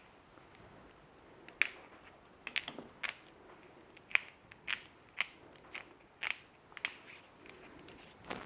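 Corrugated plastic split conduit clicking and crackling as cables are pushed into it by hand: a string of short, sharp clicks at uneven intervals, with quiet handling noise between them.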